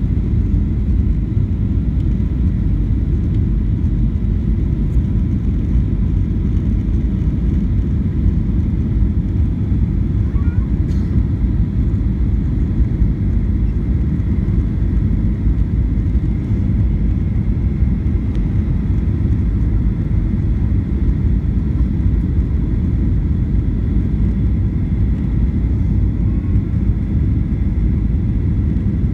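Airliner cabin noise from a window seat over the wing on final approach, flaps extended: a steady low rumble of engines and airflow, with a faint high whine.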